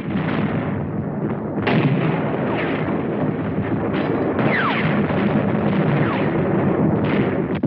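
Battle sounds on an old film soundtrack: dense, continuous gunfire and artillery, with sudden loud blasts about two seconds in, about four seconds in and near the end, and a falling whistle about four and a half seconds in.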